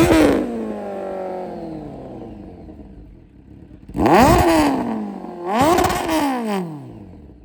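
Kawasaki Z900's inline-four engine revved while standing. A rev at the start sinks back over a few seconds, then two sharp throttle blips about a second and a half apart each rise quickly and fall away.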